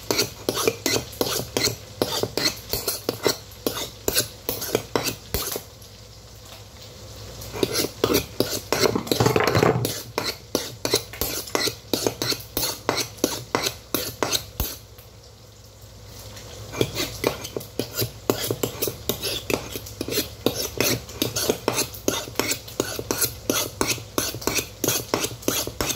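A kitchen knife stirring inside a ceramic mug, its blade clinking against the mug in quick even taps about four a second, with two short pauses. A brief louder rushing noise comes about nine seconds in.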